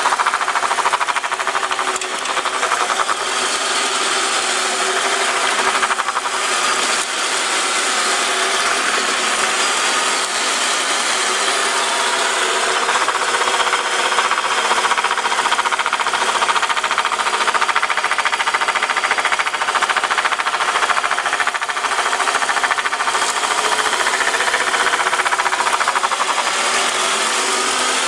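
Rapid metallic rattling from inside the CVT of a Toyota Estima ACR50W, from around the final gear, over a faint wavering whine. This rattle is the sign of internal CVT damage that only replacing the transmission with a rebuilt unit cured.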